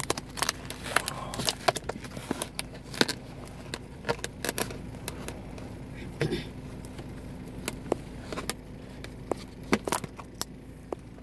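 Thin clear plastic deli-meat tray and its peel-back film crinkling and crackling as they are handled, in a quick, irregular string of sharp clicks and crackles. A faint steady low hum runs underneath.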